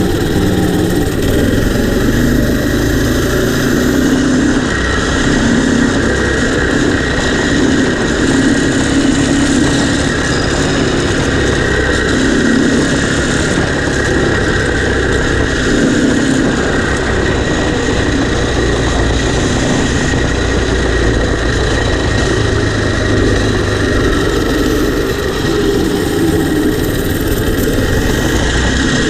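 Go kart's small gas engine running at a fairly steady speed.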